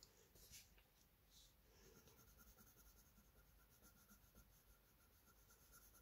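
Coloured pencil scribbling back and forth on paper as a colour swatch is laid down: a faint, scratchy rubbing in quick, even strokes that settles into a steady rhythm about two seconds in.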